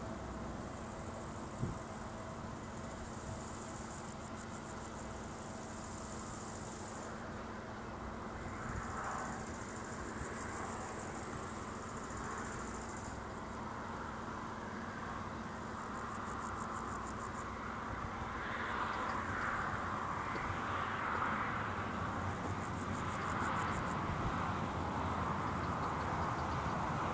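Insects, crickets by the look of it, chirping in pulsing high-pitched bursts that come and go every few seconds. A steady rushing noise builds over the last third.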